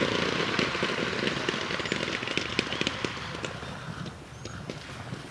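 Many paintball markers firing at once at a distance, a dense crackle of overlapping pops that thins out and fades toward the end.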